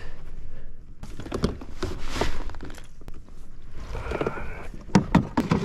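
Irregular knocks, thumps and scrapes on a fishing kayak as a just-landed bass is handled, with a cluster of sharp knocks about five seconds in.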